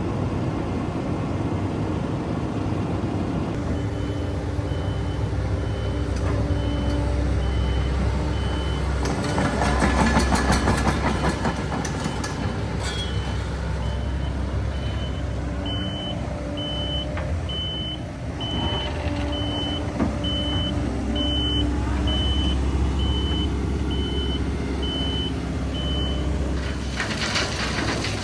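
Heavy diesel earthmoving machinery running, with a travel/reversing alarm beeping steadily at about two beeps a second from a few seconds in until near the end. A louder rattling stretch comes around ten seconds in.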